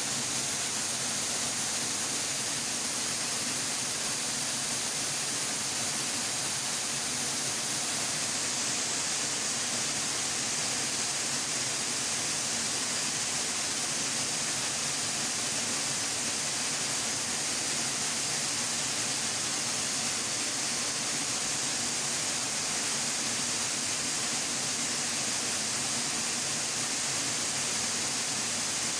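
Steady rush of water from a small waterfall pouring into a rocky pool.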